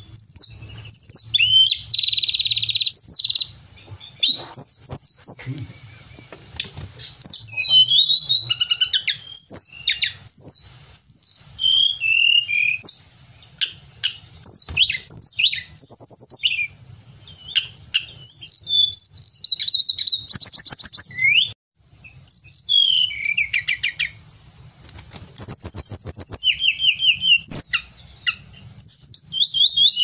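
Male hill blue flycatcher singing in full voice: quick, varied high whistled phrases with sliding notes and fast trills, broken by short pauses.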